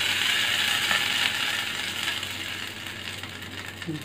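Hot tempering oil with popped mustard seeds sizzling as it hits the tomato chutney, the hiss slowly dying down, with a light click or two of a spoon.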